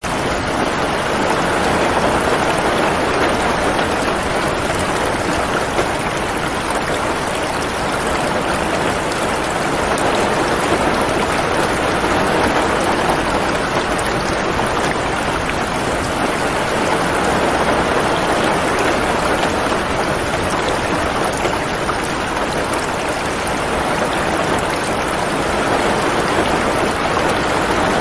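Steady rain falling on a roof, an even, unbroken patter.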